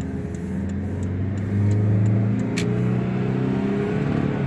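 Car engine and road noise heard from inside the cabin with a window open. The engine grows louder about a second and a half in, its pitch climbing slightly as the car picks up speed.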